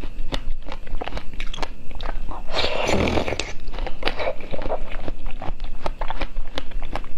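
Close-up crunching and chewing of pomegranate arils: many sharp, quick crunches, with a longer, denser crunch about three seconds in.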